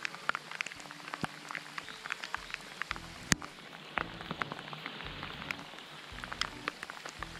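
Heavy rain falling on the reservoir surface, with many sharp ticks from drops striking close by. One tick is louder, a little over three seconds in.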